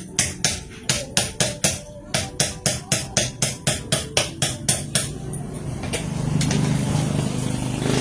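Rapid hammer blows on metal, about four to five strikes a second, working loose a rusted washing-machine part; they stop about five seconds in and give way to a steadier, louder rumbling noise.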